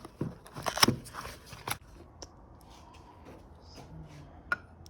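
New transmission bearing and small metal parts being handled on the bench: a quick run of clicks and clatter over the first two seconds, then a few scattered clicks.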